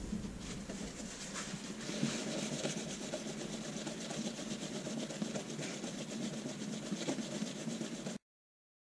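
Sandpaper rubbed by hand along a Damascus steel knife blade: a steady, scratchy rasp of quick back-and-forth sanding strokes that cuts off suddenly near the end.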